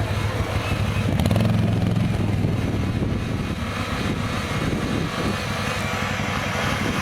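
Off-road 4x4 vehicle's engine running, loudest from about one to two and a half seconds in, then easing off.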